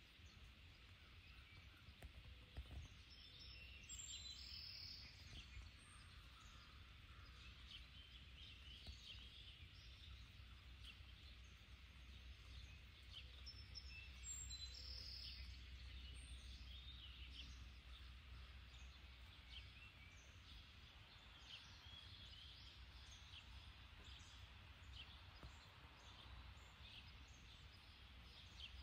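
Faint outdoor ambience: scattered short bird chirps and calls over a steady low rumble.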